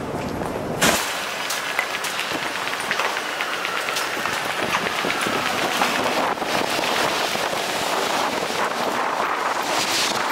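City street noise: a steady hum of road traffic with pedestrians passing.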